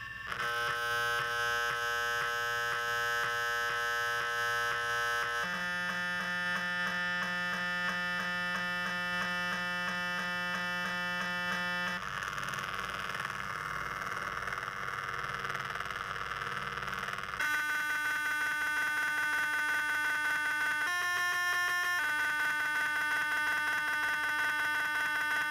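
Synthesized electronic tones from an Arduino Uno driving a sound exciter on a cast bronze sculpture, set by hand on sliders. Steady held tones that jump abruptly to a new pitch and timbre every few seconds, with a rougher, noisier stretch in the middle.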